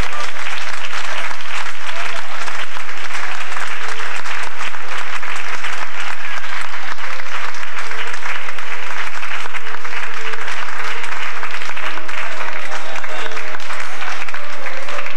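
A congregation applauding steadily, with faint instrumental music holding tones underneath.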